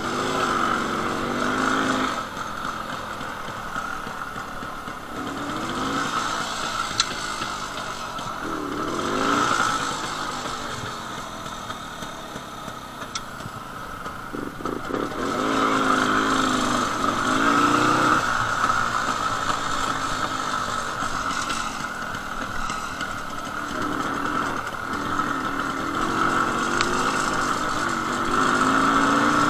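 Jawa 250/353 motorcycle's single-cylinder two-stroke engine under way, its pitch climbing and falling back several times as the throttle opens and closes.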